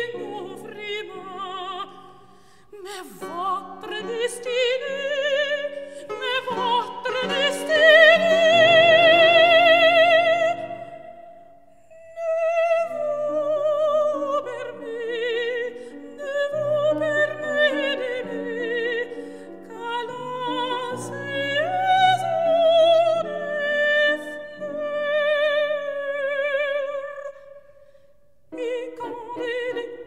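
Operatic soprano voice singing with wide vibrato over piano accompaniment. A long, loud held high note about eight seconds in is the peak, and she sings flowing phrases after it.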